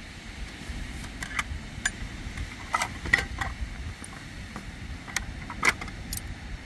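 Scattered light clicks and clinks of small hard objects, some with a brief ring, over a steady low rumble; the sharpest come a little after three seconds and just before six seconds.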